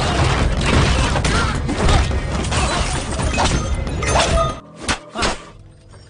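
Film fight-scene soundtrack: loud music mixed with thuds, whacks and crashes, cutting off suddenly about four and a half seconds in, followed by two short hits.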